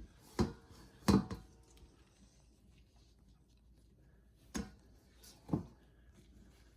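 Five sharp knocks or clatters, unevenly spaced, from objects being handled in a kitchen. There are two close together at the start, the loudest about a second in, then two more near the end.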